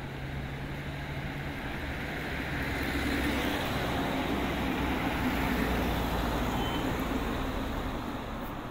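A road vehicle driving past on the street, its engine and tyre noise growing louder to a peak about halfway through and then fading away.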